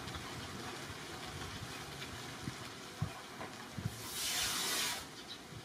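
Steady outdoor background noise with a few soft low thumps, then a louder rush of hissing noise lasting about a second near the end.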